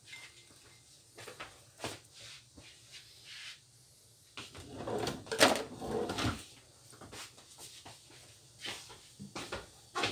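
Small knocks and rustling from handling a tray and bowl of fresh mung bean sprouts, with a louder stretch of rustling about halfway through.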